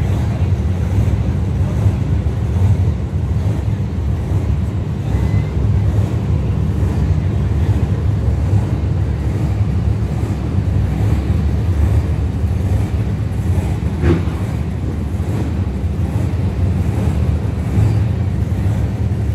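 Monster truck's supercharged V8 engine idling steadily at close range, with one brief sharp click about two-thirds of the way through.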